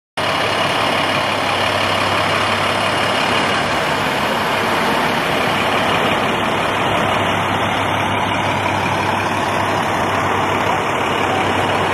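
Fire engine's diesel running as it rolls past, a loud, steady, unbroken engine noise.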